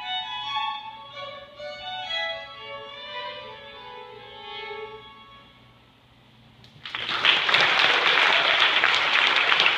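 Two fiddles playing the closing phrase of a duet, the notes stepping down in pitch and fading out about five seconds in. After a short pause, applause breaks out about seven seconds in and continues.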